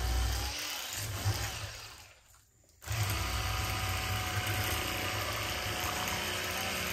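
Electric fillet knife running as it cuts through a bowfin fillet, a steady motor buzz with a low hum. It winds down about two seconds in, is silent for a moment, then starts up again sharply and keeps running.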